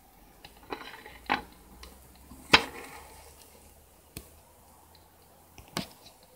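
Handling noise: a hand touching and moving the camera, giving a string of clicks and knocks with the loudest about two and a half seconds in.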